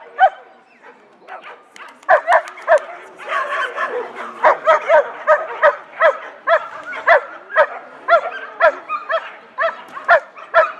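A dog barking over and over in short, high-pitched barks, about two a second, starting after a brief pause near the beginning.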